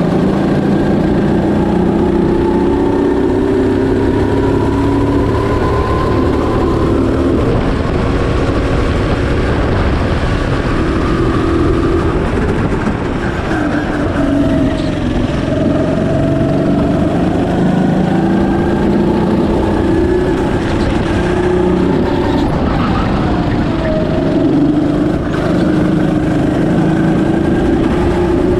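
Go-kart engine running at speed, heard from on board the kart, its note rising and falling over and over as the revs climb and drop.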